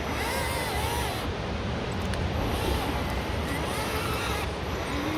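Electric motor of a scale RC rock crawler whining, its pitch rising and falling in short arcs with the throttle as it climbs, over a low rumbling noise.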